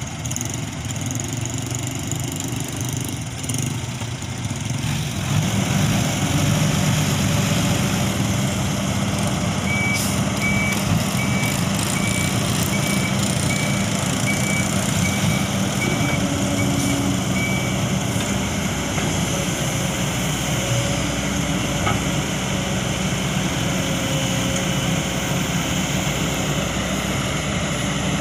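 Kobelco SK200-8 hydraulic excavator's diesel engine running under load as it digs and swings soil, a steady drone that gets louder about five seconds in. A backup alarm beeps repeatedly for several seconds in the middle.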